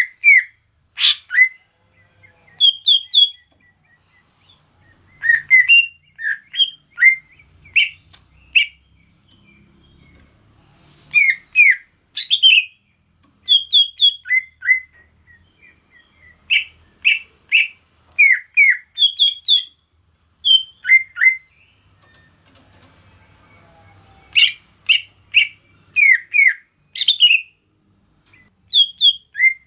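Cucak ijo (green leafbird) calling in quick clusters of short, sharp, downward-sweeping chirps, with pauses of a second or more between clusters. A steady high hiss runs underneath.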